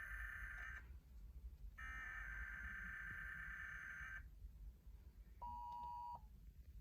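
Emergency Alert System SAME header data tones: a faint, harsh digital warble in two bursts of about two and a half seconds each, a second apart, followed a little later by a brief steady two-tone beep.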